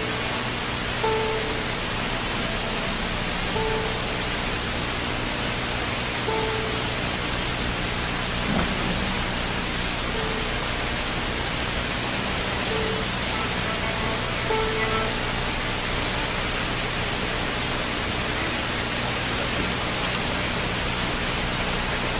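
Steady loud hiss of an old broadcast recording, with faint short notes on one pitch recurring every second or two.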